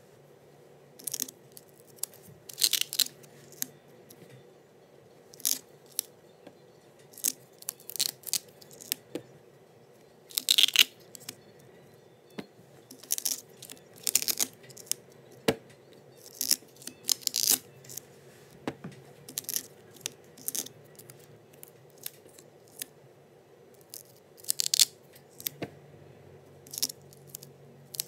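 Velcro hook-and-loop tape ripping apart and gripping as laminated picture cards are peeled off and pressed onto a Velcro strip. Many short rasping rips come at irregular intervals.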